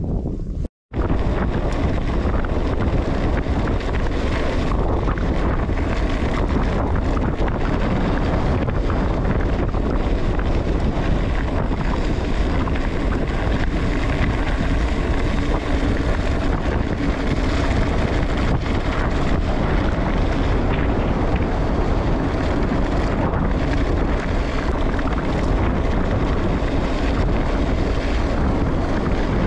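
Wind rushing over the microphone while riding: a loud, steady rush with a heavy low rumble. It cuts out for a moment about a second in, then carries on unchanged.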